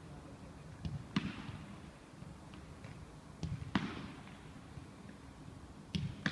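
A football struck and caught in goalkeeper's gloves three times, about every two and a half seconds, each time as a pair of thuds a fraction of a second apart.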